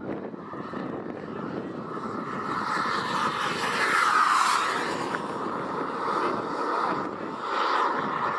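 Turbine of a radio-controlled Viper model jet (a K-140 jet turbine) whining and rushing as the jet flies past. It swells to its loudest about four seconds in, fades, then rises again briefly near the end.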